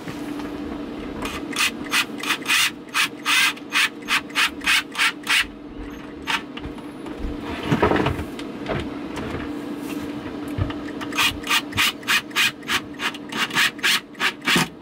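Wood screws being driven through a water pump's mounting feet and rubber pads into plywood: a rasping grind in quick repeated strokes, about three or four a second, in two runs of several seconds with a pause between.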